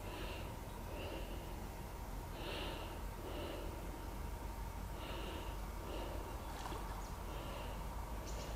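A person breathing through the nose close to the microphone, soft in-and-out puffs about every two and a half seconds, over a steady low rumble.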